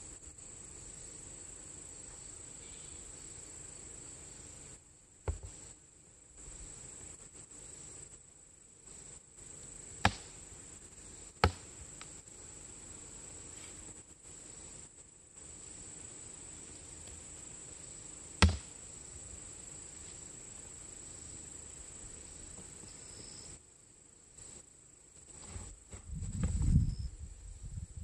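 Steady high chirring of field insects, with four sharp knocks from handling the wooden beehive, the loudest about two-thirds of the way through. Low rumbling handling noise builds near the end.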